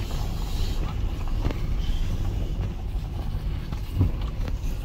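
Low, steady rumble of a vehicle moving slowly along a gravel track, heard from inside the cab, with a single knock about four seconds in.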